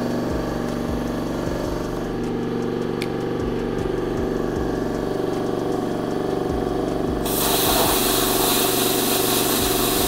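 Air compressor running steadily with a steady mechanical drone. About seven seconds in, a Miller Spectrum 375 X-Treme plasma cutter's arc starts with a loud hiss as it cuts steel plate.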